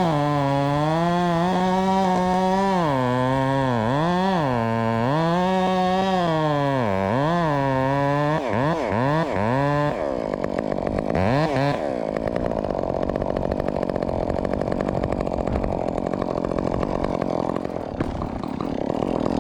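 Modified Husqvarna 562XP two-stroke chainsaw running, its engine revving up and down for about ten seconds. After that a rougher, steady sound takes over as it works through the wood.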